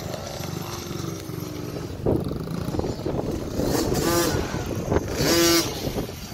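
Small youth dirt bike engine running and revving, with two louder high revs, about four seconds in and again about five seconds in.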